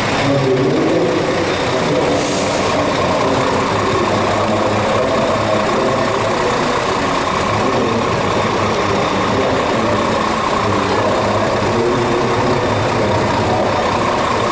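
Scania P 410 fire engine's six-cylinder diesel idling steadily.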